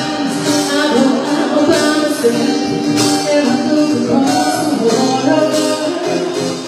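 Music with singing over a steady percussion beat.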